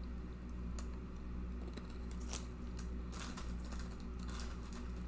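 Scattered light clicks and crackles from a snack packet being handled, a few seconds apart, over a low steady hum.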